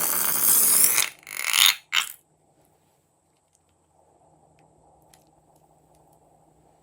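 Air and slime forced out through the neck of a balloon: a loud sputtering, rushing hiss for about a second, two shorter spurts, then only faint small ticks.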